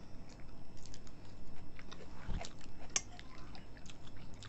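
People chewing mouthfuls of kimchi omelette, with scattered small clicks and taps of steel spoons on steel plates.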